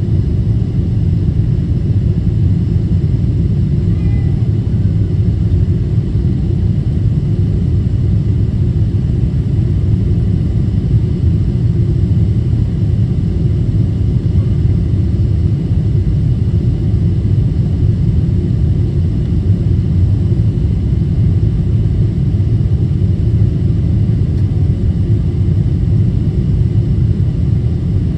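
Steady low rumble of a Boeing 777-200ER's engines and rushing airflow, heard from inside the economy cabin.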